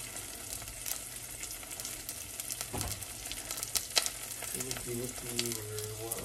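Onions sizzling and crackling in hot oil in a saucepan, beginning to burn a little.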